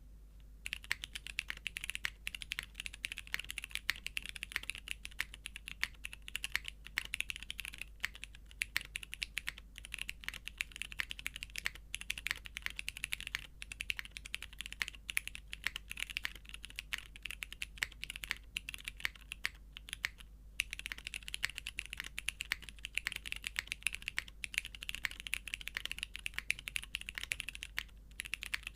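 Steady typing on a custom mechanical keyboard with vintage Cherry MX Brown tactile switches, a polypropylene plate in a top-mount case and GMK keycaps: a fast, continuous patter of keystrokes broken by a few short pauses.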